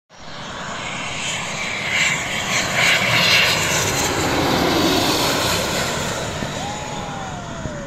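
Small business jet passing low overhead on its landing approach: steady jet engine noise that swells to its loudest about halfway through, then fades with a falling whine as the jet moves away.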